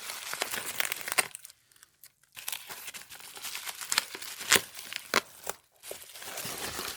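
Packing material of a mailed comics package crinkling and rustling as it is handled and pulled apart by hand, in irregular bursts of crackling with a short pause about a second and a half in.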